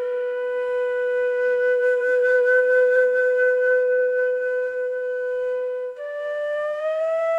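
Shakuhachi bamboo flute playing solo: one long, steady held note, then about six seconds in it moves to a slightly higher note and bends it upward.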